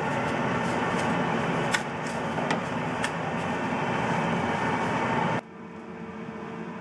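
Steady hiss of kitchen noise with a few light clicks while fried pastries are rolled in granulated sugar in an aluminium tray. About five seconds in it cuts off suddenly to a quieter, low steady hum.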